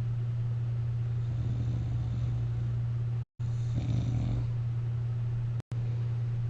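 A sleeper lying on their back with a CPAP mask on gives one short snore about four seconds in, over a steady low hum. The sound cuts out completely for a moment twice.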